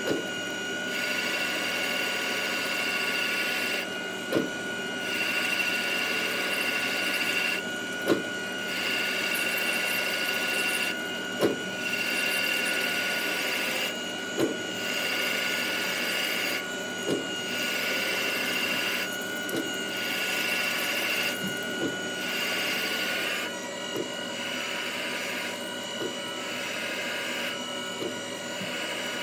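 A CNC lathe is machining an aluminium turbo compressor housing under flood coolant, with a steady spindle whine over the hiss of cutting and spray. About every three seconds, and closer together toward the end, the cutting noise breaks off briefly with a short click as the tool steps through repeated passes cutting the radius.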